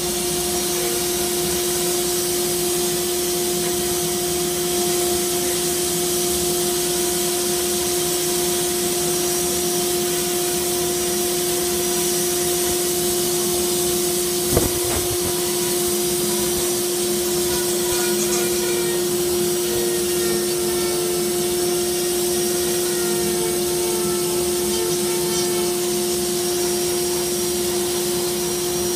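Dust-collection vacuum running steadily with a constant hum and hiss, while a rotary carving tool grinds into wood at the hose's mouth. One sharp click about halfway through.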